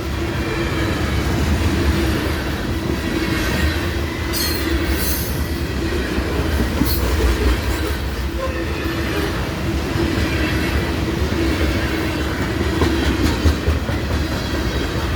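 CSX freight train's cars rolling past on the rails, a steady heavy rumble with wheel clatter, and a brief high wheel squeal about four seconds in.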